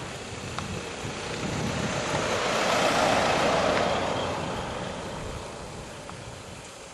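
Toyota Land Cruiser Prado 4x4 driving past on a snow-covered road: its tyres and engine swell to a peak about three seconds in as it passes close by, then fade as it pulls away.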